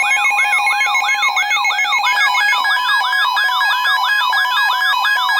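Emergency alert tones from alert receivers: a steady two-tone attention signal overlapped by a siren-like alarm that sweeps upward about three to four times a second. About two seconds in, the steady tones change to a different pair.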